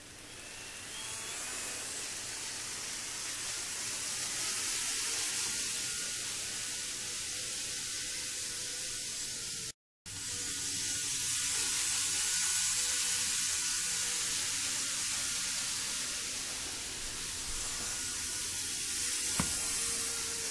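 Kato N-scale 500 series Shinkansen model train running on its track: a steady high whirring hiss from the motor car and the wheels on the rails, growing louder over the first couple of seconds as the train gets going. It struggles a little around corners, and the sound cuts out for a moment just before halfway.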